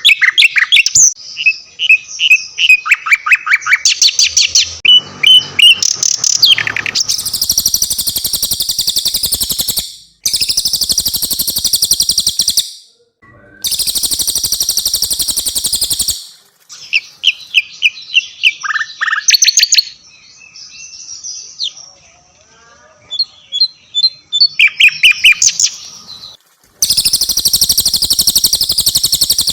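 Cililin and sikatan londo songbirds singing in turn: quick chirps, short whistled trills and sliding notes, broken by several long, rapid, high trills that each last two to three seconds.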